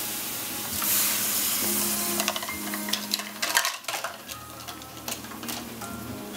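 Beans sizzling in a hot aluminium pan as water is added, with a loud burst of hiss about a second in. A spoon then stirs and scrapes against the pan with a run of clicks, and the sizzle dies down after about four seconds.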